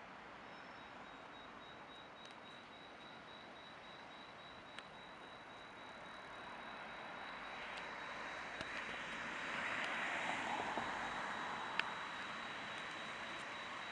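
Electric tram approaching and passing, its rolling noise swelling to a peak partway through and easing off. A few sharp clicks and a thin, steady high whine sit over it.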